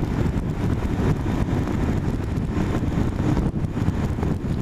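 Wind buffeting the microphone of a rider on a moving motorcycle: a steady low rumble with engine and road noise underneath.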